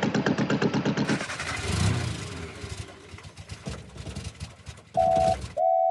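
Steam traction engine sound effect, running with a fast, even beat as it moves off, fading over the next few seconds. Near the end a steady single-pitched tone sounds twice.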